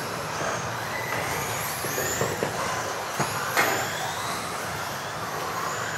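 Electric 1:10 off-road RC buggies racing, their motors whining in pitch glides that rise and fall as they throttle up and back off, over a steady rush of running noise. A few sharp knocks come between about two and three and a half seconds in.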